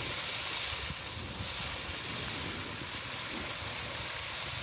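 Chicken masala frying in oil in a metal wok over a wood fire: a steady sizzle.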